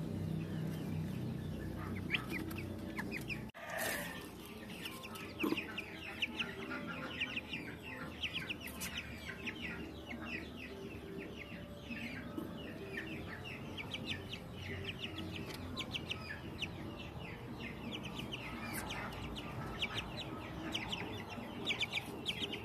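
Young Ayam Cemani chickens peeping and clucking: many short, high, falling cheeps in quick succession. The sound drops out briefly about three and a half seconds in.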